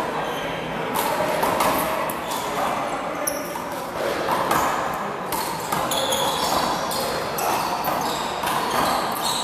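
One-wall handball rally: the rubber ball slapped by hands and smacking off the wall and floor several times, with players' shoes shuffling on the court, echoing in a large hall.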